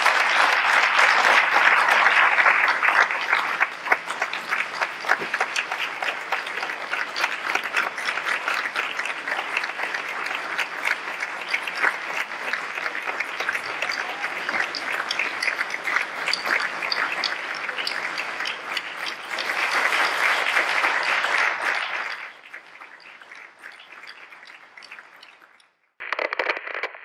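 Concert audience applauding, dense and sustained, swelling again about twenty seconds in before dying away.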